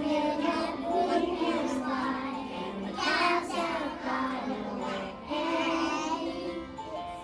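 Young voices singing a song in long held notes.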